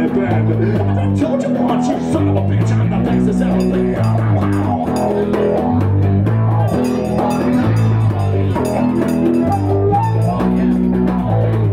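Live rock band playing an instrumental passage: electric guitar and bass guitar over a hand drum, the bass running a repeating line of low notes.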